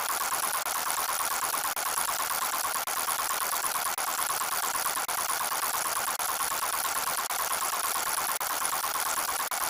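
A steady, rattling engine-like sound effect, looped so that it breaks off for an instant about once a second.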